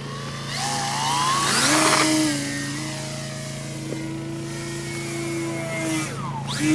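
Electric motor and propeller of a 40-inch EPP foam Edge 540 RC aerobatic plane in flight, a whine whose pitch climbs about a second in, holds steady, then dips and rises again near the end as the throttle changes.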